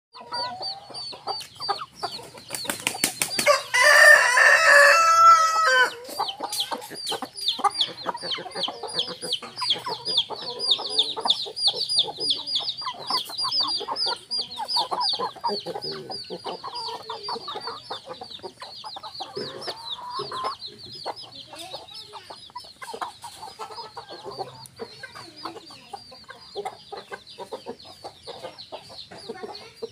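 Village chickens clucking, with a rooster crowing loudly about four seconds in. A rapid, high-pitched chirping runs behind the clucking for most of the time and fades after about twenty seconds.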